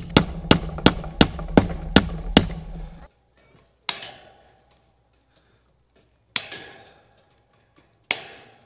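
Hammer striking wood in a quick, even run of about seven blows, roughly three a second. After a sudden stop, three single sharp knocks follow a couple of seconds apart, each dying away briefly.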